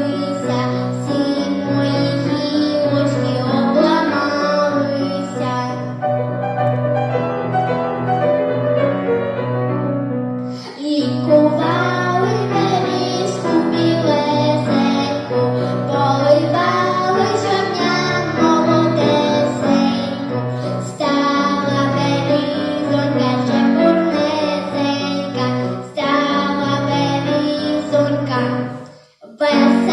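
A girl singing a Ukrainian folk song with instrumental accompaniment. The music breaks off for a moment near the end.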